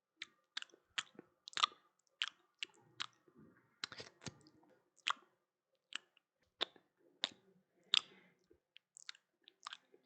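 Close-up wet lip smacking and sloppy chewing: a run of sharp, moist mouth clicks at an uneven pace, with soft squelching between them.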